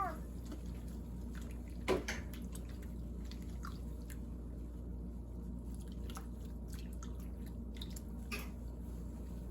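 Water dripping and splashing lightly in a filled kitchen sink as a cat soaks in it, with scattered small clicks and one sharper knock about two seconds in.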